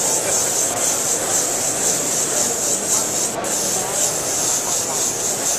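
Airbrush spraying paint: a steady high hiss of compressed air through the airbrush, broken for an instant a little past halfway as the trigger is let off.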